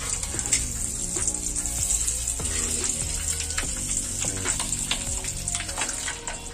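Hot oil sizzling in a frying pan as halved boiled eggs fry, with scattered light clicks and scrapes of a metal spatula turning them over.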